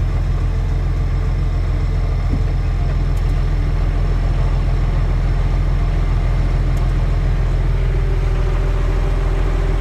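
International Harvester tractor engine running steadily at low throttle, heard from inside the cab.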